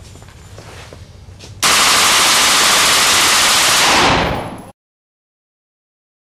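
A short-barreled AR-15 in .223 with a 6.5-inch barrel and its flash hider removed, firing rapidly in an indoor range with cinder-block walls. The shots run together into one very loud continuous blast that starts suddenly about a second and a half in and lasts about two and a half seconds before fading out.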